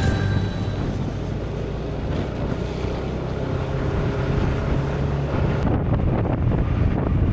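Yamaha NMAX scooter's single-cylinder engine running while riding, with wind buffeting the microphone. The hiss of the wind eases off for a moment near the end.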